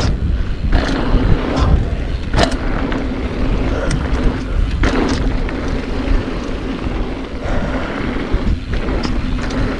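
Mountain bike riding fast down a dirt bike-park trail: wind rushing over the microphone and tyres rumbling on the dirt, with sharp clacks from the bike hitting bumps and landings every second or two.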